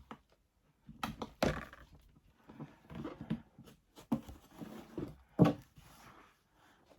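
Substrate being scooped and tipped into an enclosure: irregular knocks and thuds on the container with scraping and rustling in between, the loudest knock about five and a half seconds in.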